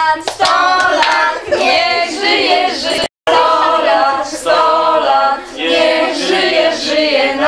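A group of children and adults singing a birthday song together around a cake. The sound cuts out completely for an instant about three seconds in.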